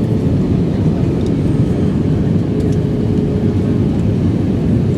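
Steady cabin noise of an Airbus A320 in flight: an even, deep rumble of engines and airflow, with a faint steady hum above it.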